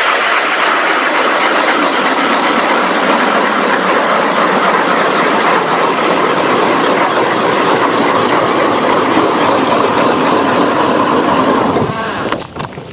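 Ion 10-inch battery-electric ice auger drilling through lake ice on freshly belt-sharpened blades, run with no downward pressure. The motor and the cutting blades run steadily and stop about twelve seconds in.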